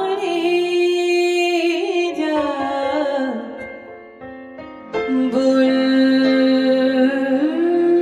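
Music: a woman's voice singing long held notes with vibrato, sliding down about two to three seconds in, dipping briefly, then taking up a new held note from about five seconds.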